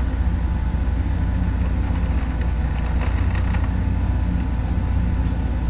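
Steady low rumbling background noise with a faint continuous hum.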